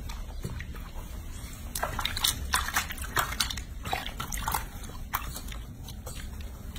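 Soapy water sloshing and splashing in a sink as hands scrub a baby monkey, a quick run of splashes through the middle.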